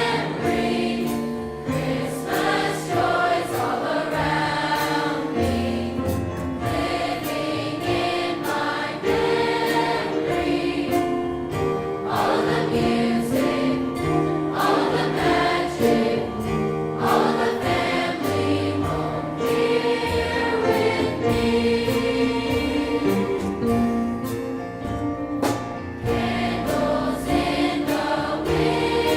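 A large high school choir singing a Christmas song in harmony, with long held notes over a low bass line.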